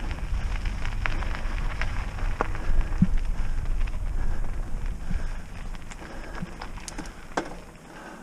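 Trek Roscoe 6 mountain bike rolling down a dirt singletrack: a low wind rumble on the microphone, with tyre crunch and scattered clicks and rattles from the bike. The rumble eases off near the end.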